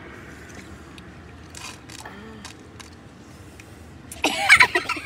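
Steady hum inside a car with a few faint clicks, then about four seconds in a woman bursts into loud laughter in quick broken bursts.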